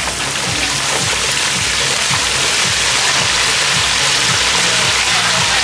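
Music with a steady bass beat over a loud, even hiss.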